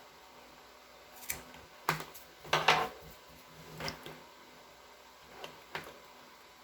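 Hands working Cat 6 network cable and its small tools: a handful of scattered, sharp clicks and rustles, the loudest cluster about two and a half seconds in.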